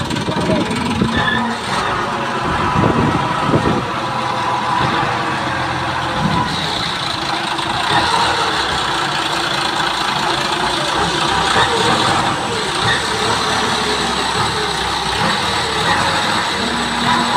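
Large forklift's engine running steadily at idle.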